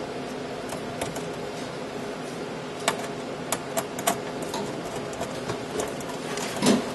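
Light clicks and taps of metal hardware as a screen assembly is fitted and screwed back into a tape library, a few sharp ones about halfway through, over a steady hum of equipment.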